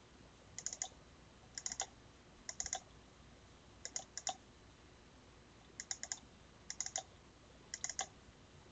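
Faint computer mouse button clicks: seven quick double- or triple-clicks spaced roughly a second apart, opening folders one after another in a file dialog.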